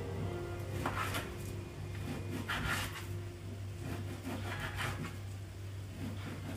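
Dull kitchen knife slicing through raw beef chunks on a metal baking tray, a few separate cutting strokes with the blade rubbing and scraping.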